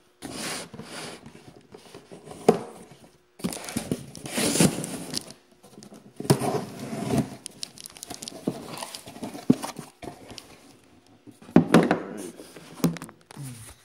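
Bubble wrap and cardboard packaging crinkling and rustling in irregular bursts as it is handled, with a few sharp knocks.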